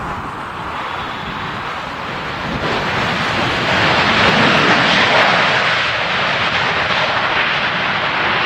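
Jet airliner on its landing approach passing close by, a rushing engine noise that swells about three seconds in, is loudest around the middle, then eases slightly.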